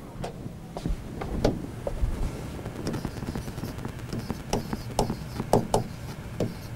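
Irregular light clicks and taps of a pen on an interactive whiteboard screen as letters are written, over a steady low hum.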